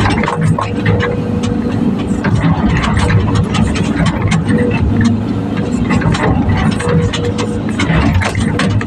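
Volvo EC210 excavator's diesel engine running steadily, with frequent sharp clanks and knocks.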